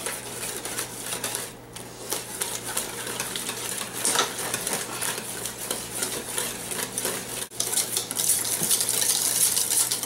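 A whisk beating whipped topping into half-set strawberry jello in a stainless steel pot: rapid, continuous scraping and clinking of the wires against the pot. There is a short lull early on, and the whisking is loudest in the last couple of seconds.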